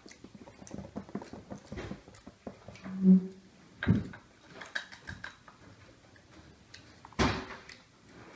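Chewing of chewy sour candies, with small clicks and knocks as fingers pick candies out of ceramic ramekins on a hard table. A brief hummed 'mm' comes about three seconds in, and there are two louder sharp noises near four and seven seconds in.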